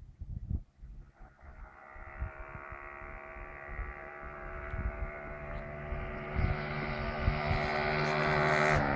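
Honda Cub 90's small single-cylinder four-stroke engine running steadily as the bike approaches, growing louder all the way. A few scattered thumps come before the engine is heard, in the first second.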